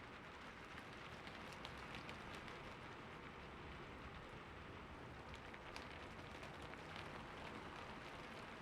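Steady rain falling, with scattered single drops tapping sharply now and then.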